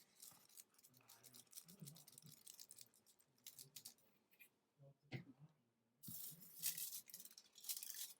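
Aluminium foil strip crinkling and rustling as it is handled and rubbed down by hand onto cardboard: faint scratchy rustles, growing louder and denser about six seconds in.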